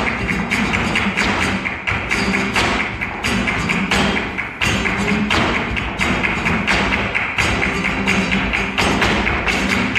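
Flamenco: a dancer's heeled shoes stamping and tapping in rapid zapateado footwork, with hand clapping (palmas) and a flamenco guitar playing underneath.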